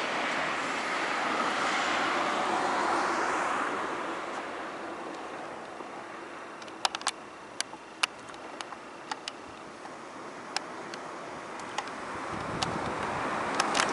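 Passing road traffic: the rush of one vehicle fades over the first few seconds and another builds toward the end, with a scatter of sharp clicks in the middle.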